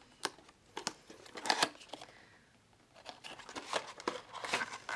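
A paper box of sheet masks being opened and handled, its paper and the packets inside crinkling and rustling in a run of short sharp crackles, busiest about a second and a half in and again from about three seconds in.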